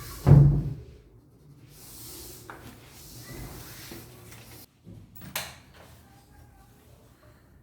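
Wooden cabinet parts being handled: a heavy thump just after the start, a soft sliding rub, then a sharp knock about five seconds in.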